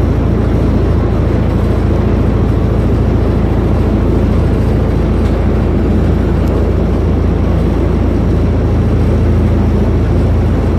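Loud, steady low rumble of an engine running, even in level and pitch throughout.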